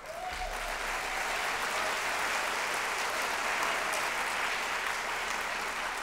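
Audience applauding, starting abruptly and tapering off slightly near the end.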